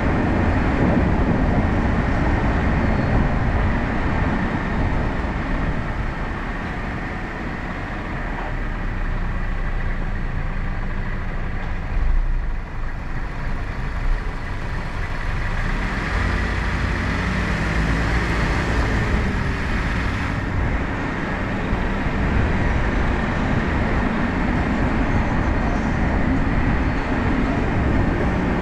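Steady road and tyre rumble of a car driving slowly along city streets. It eases off for a few seconds as the car slows behind traffic. A brief thump comes about twelve seconds in, and engine noise rises in pitch a little later as the car pulls away.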